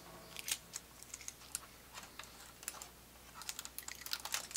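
Light, scattered plastic clicks and taps from hands handling a Brother colour laser printer's pulled-out drum-unit drawer and its orange packing pieces, with a quicker run of clicks near the end.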